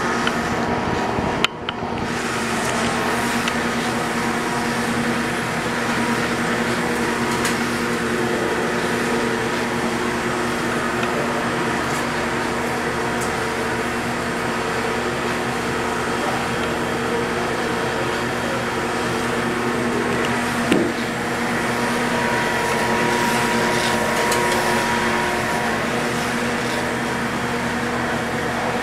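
Electric gear motor driving the single-action scraper agitator of a Groen RA-100 100-gallon stainless steel kettle, running steadily with an empty bowl: a constant mechanical hum and whine. A short click comes early, and a single knock about twenty seconds in.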